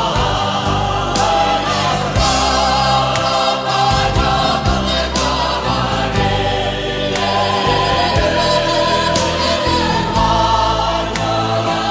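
Background music: a song passage with sustained sung chords over steady bass notes.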